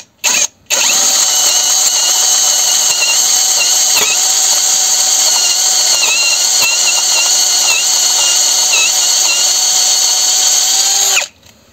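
Drill boring into the cast-iron block of a KAMAZ 740 engine with a twist bit: two quick blips of the trigger, then the drill runs steadily under load for about ten seconds, its pitch dipping briefly a few times as the bit bites, and stops suddenly near the end.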